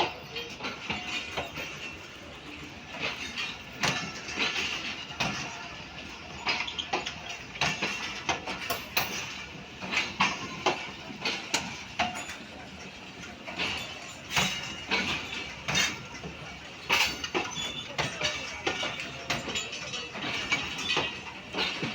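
Railway passenger coaches rolling slowly over rail joints and points, with irregular wheel clatter and sharp metallic knocks and clanks.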